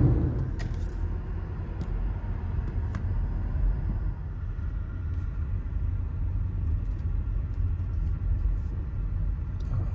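Low, steady rumble of a car's engine and tyres heard from inside the cabin while driving slowly, with a few faint ticks.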